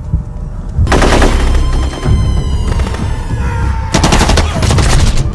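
Two bursts of rapid automatic gunfire, the first about a second in and the second about four seconds in, over dramatic music with a heavy bass beat.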